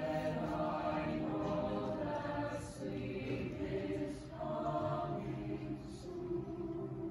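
Mixed choir of young male and female voices singing together in long held notes, several pitches sounding at once.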